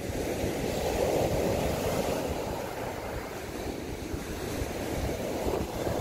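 Surf breaking and washing up a sand beach, a steady rushing that swells about a second in, with some wind buffeting the microphone.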